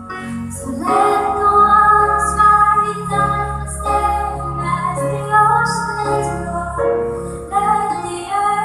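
A woman singing a Christian worship song over an instrumental backing, the voice moving between held and changing notes.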